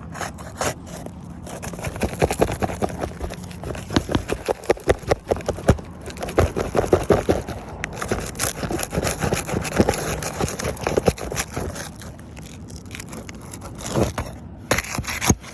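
Old, brittle roof shingles being worked loose and their nails pried up: a dense run of scraping, crackling and clicking that thins out about twelve seconds in, with a few last scrapes near the end.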